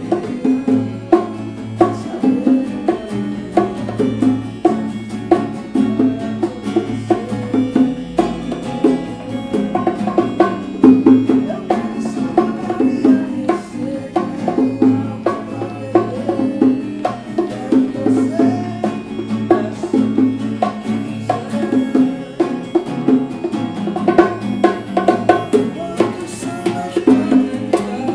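Instrumental passage of a small live band: acoustic guitar picking, hand-struck bongos and a keyboard over a steady low bass line, without vocals.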